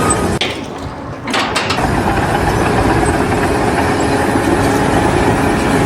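A heavy engine running steadily, briefly dropping away early on before coming back.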